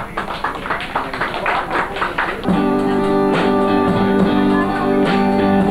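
Live rock-and-roll band playing an instrumental passage with electric guitar: a quick, choppy strummed rhythm for the first two and a half seconds, then steady held notes.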